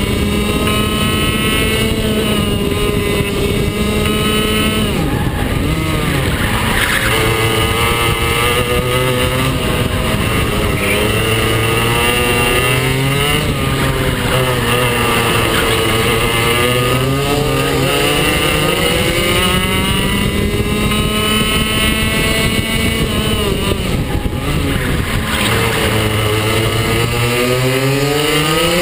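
Go-kart engines at racing speed, the pitch climbing on each straight and dropping off as the kart slows for the corners, several times over, with a steady rushing noise beneath.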